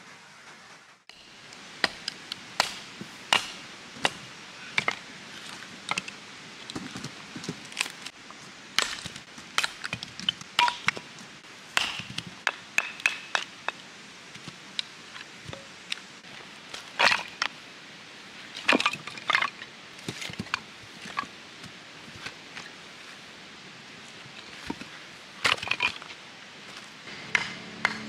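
Firewood being split into kindling on a rock: a steady run of sharp, irregular wooden knocks and cracks, about one or two a second, as the tool strikes and the wood splits.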